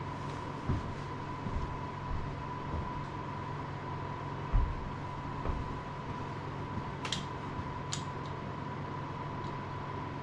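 Steady electrical hum with a constant high whine, broken by a few light knocks and small sharp clicks.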